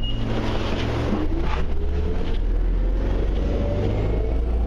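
Inside a city bus under way: a steady low engine rumble with a drivetrain whine that rises slowly in pitch as the bus accelerates.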